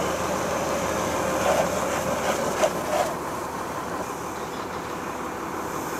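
A fire hose spraying water into a burning car's engine compartment, a steady rushing hiss over a constant mechanical drone. A few brief louder sounds come between about one and a half and three seconds in.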